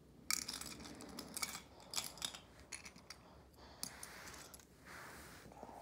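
Loose plastic LEGO pieces clicking and clattering as a hand rummages through a pile of them: an irregular run of sharp clicks and rattles, the loudest right at the start.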